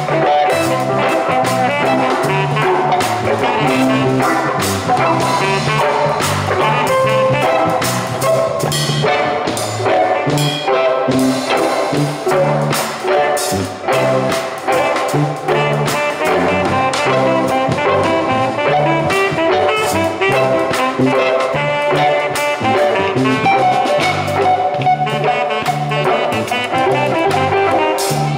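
Live band playing a song together: electric guitars, saxophone and drum kit, amplified through the stage PA.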